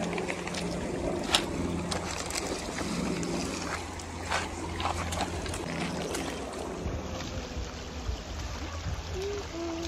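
Shallow creek water running over a stony bed, with wind buffeting the microphone. Sharp clacks of stones knocking underfoot come through it a few times, the loudest about a second and a half in and again a little over four seconds in.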